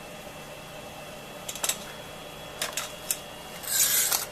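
Handling noise of plug-in power supplies being swapped: a few sharp plastic clicks and knocks, then a short scraping rattle near the end, which is the loudest part.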